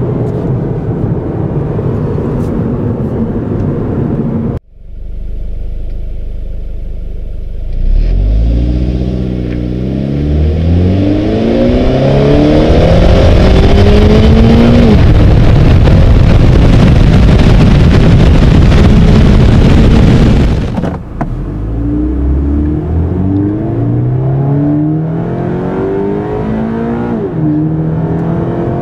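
2013 Subaru BRZ's 2.0-litre flat-four engine accelerating hard, its pitch climbing and dropping back again and again as it shifts up through the gears. In the middle stretch, loud wind and tyre rush from outside by the wheel covers much of the engine.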